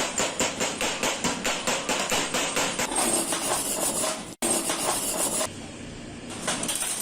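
Rapid, even hammer strikes on metal, about four a second, giving way about three seconds in to a steady hissing noise that cuts off abruptly twice.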